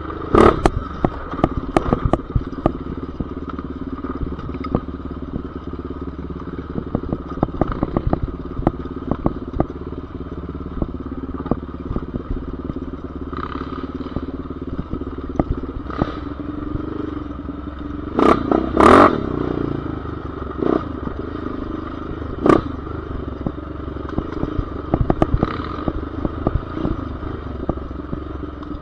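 An off-road vehicle's engine running steadily along a rocky dirt trail, with many short knocks and clatter from the bumpy ground. About two-thirds of the way through, the engine revs up louder for a moment.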